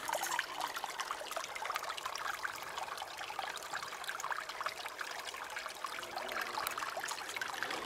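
Water trickling steadily: an even, fine patter with no pauses.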